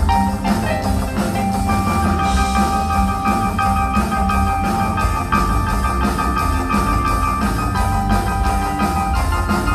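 Music with a steady drum beat and long held melody notes.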